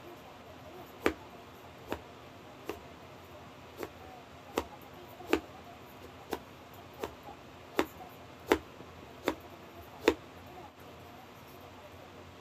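Kitchen knife roll-cutting a burdock root, chopping down onto a cutting board: about a dozen sharp knocks, under a second apart, stopping about ten seconds in.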